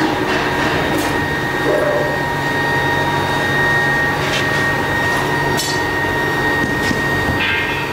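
Workshop machinery running steadily with a constant high whine and a low hum, with a few sharp metal knocks or taps over the top.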